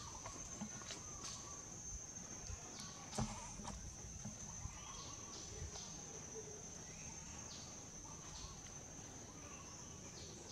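Steady high-pitched insect drone, with faint scattered ticks, a few short chirps and a sharp knock about three seconds in.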